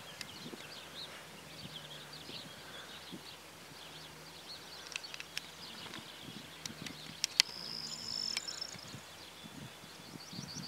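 Birds singing in the background, many short high chirps and trills, with a faint low hum beneath. A few sharp clicks or knocks stand out, the loudest about seven seconds in.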